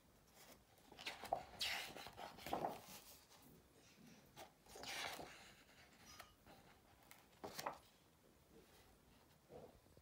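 Pages of a large photography book being handled and turned: faint paper rustles and swishes, several times.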